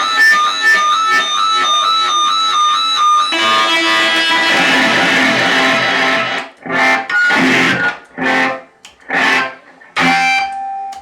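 Music on a plucked string instrument. Quick repeated notes with a wavering pitch, then a full chord struck at about three seconds and left ringing, then a run of short separate strums with gaps between them.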